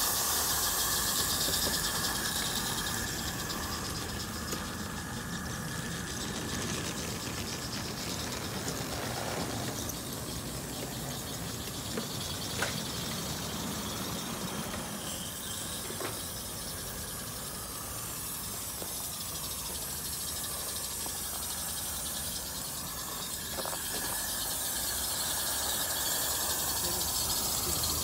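Live-steam garden-scale double Fairlie locomotive running with a steady hiss of steam, a little louder where it passes close by at the start and end, and a few sharp single clicks.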